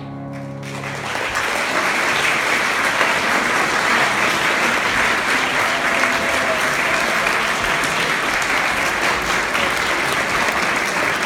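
A grand piano's final chord fades out, and a large audience of students starts applauding within the first second and keeps clapping steadily.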